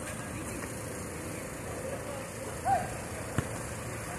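Outdoor basketball court ambience: a steady background hum, a brief high squeak about two and a half seconds in, and a single sharp thud of the basketball bouncing about a second later.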